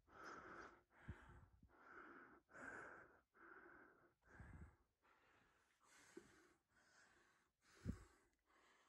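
Faint, close breathing, a steady run of breaths in and out about one a second. Two dull knocks come through it, one about a second in and a louder one near the end.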